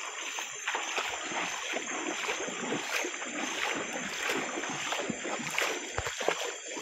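River water splashing and sloshing irregularly, with a few knocks about six seconds in.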